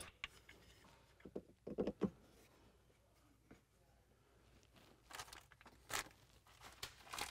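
Scattered clicks and knocks from fitting a switch box and its mounting arm in a utility vehicle's cab: a cluster of duller knocks about two seconds in, and sharper clicks near the end.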